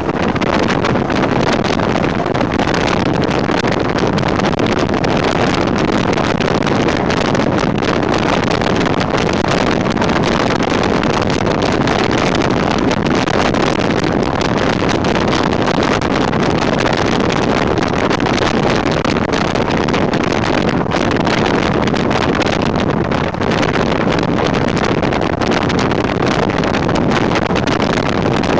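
Jeep CJ7 driving at steady speed, heard from outside the body: a constant rush of wind buffeting the microphone over tyre and engine noise on asphalt.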